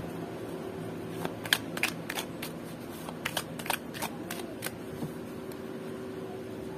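Oracle card deck being shuffled by hand: a run of irregular light card clicks and snaps that thins out and stops about five seconds in.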